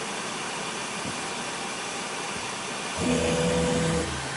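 Stepper motors of an UP! Mini 3D printer moving the print head to the next calibration point: a whine of several steady pitches about three seconds in. It lasts about a second, then stops, leaving a low hum over a steady hiss.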